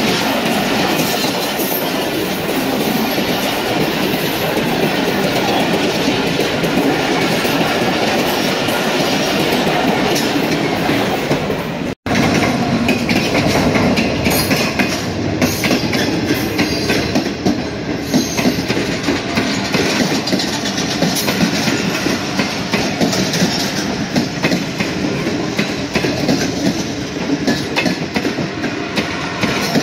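Coaches of a fast express passenger train passing close by, steel wheels running over the rails in a loud, continuous rolling clatter. The sound cuts out for an instant about twelve seconds in, then the passing noise resumes.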